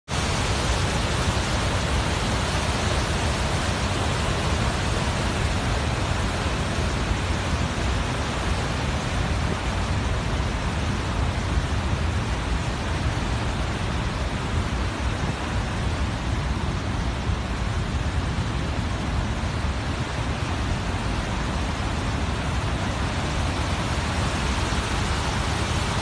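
Water gushing from the open gates of a concrete dam spillway and crashing over rocks below: a steady, loud rush of whitewater.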